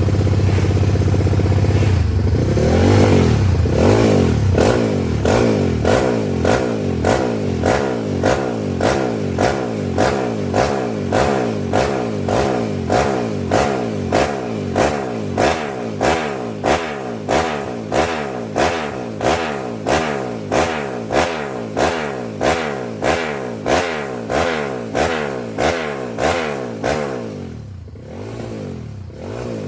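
Race motorcycle engine revved hard, first held up and climbing, then blipped over and over in quick, even throttle stabs a little over once a second. It drops back to a lower run near the end.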